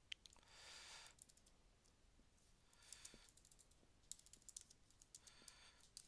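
Faint typing on a computer keyboard: scattered, irregular keystrokes.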